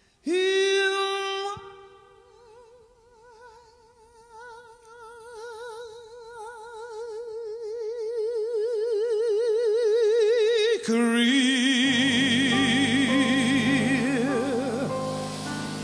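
A female jazz singer's voice holds one long note with a wide vibrato. It starts strong, fades to soft, then swells steadily louder for about eight seconds. About eleven seconds in, it drops to a lower held note as the instrumental accompaniment comes up beneath it.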